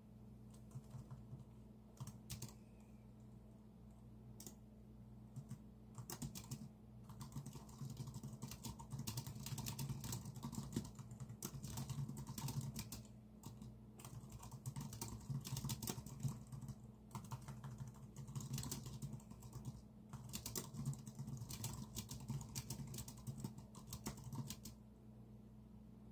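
Typing on a computer keyboard: a few scattered keystrokes at first, then quick steady runs of key clicks with short pauses between them, stopping shortly before the end. A low steady hum sits underneath.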